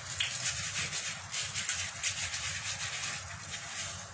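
Gloved hand massaging sliced chicken in a tray of wet marinade: squelching and plastic-glove rubbing in irregular strokes, easing off near the end.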